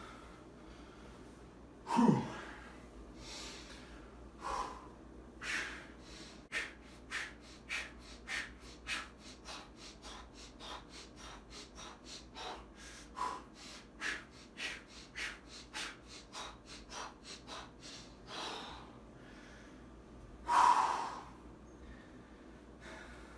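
A man breathing hard under exertion through a high-rep set of dumbbell shoulder raises. There is a short grunt about two seconds in, then quick sharp breaths about two a second, and a loud heavy breath near the end.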